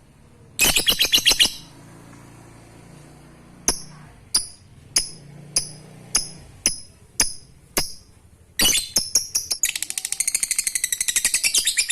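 Lovebird (Agapornis) calling. It opens with a short burst of rapid chatter, then gives a run of sharp single chirps about two a second. From about three-quarters through it breaks into a long, fast rattling trill: the lovebird's 'ngekek' song.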